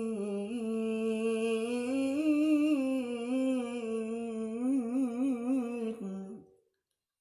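A reciter's voice holding one long melodic note of Quran recitation (tilawah), weaving it through small wavering turns and trills. It cuts off about six and a half seconds in.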